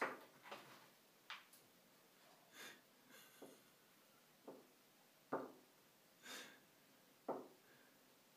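Faint, scattered light knocks and clicks of small items on a wire shower caddy as a Siamese cat paws at them from above, about six in all. A couple of soft breathy sounds fall between them.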